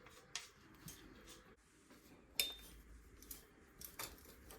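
Faint metallic clicks and clinks of tools and bike parts being handled during a strip-down, with the sharpest click about two and a half seconds in and another at about four seconds.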